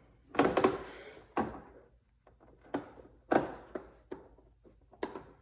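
Irregular plastic knocks and clicks of a car door trim panel and its lock switch connector being handled and fitted, the loudest cluster about half a second in.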